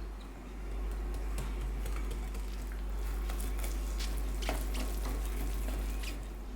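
A run of light clicks and clinks of kitchen utensils being handled, mostly in the middle stretch, over a steady low hum.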